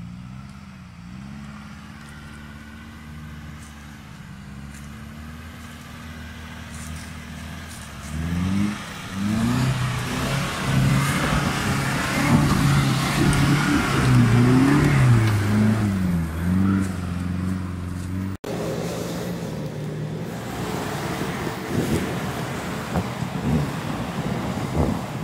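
Nissan Patrol Y61 4x4 engine pulling up a steep dirt forest track. It runs at low revs at first, then from about eight seconds in it gets louder and revs up and down repeatedly as the truck climbs the ruts. After an abrupt cut near the end, another 4x4's engine runs steadily on the track.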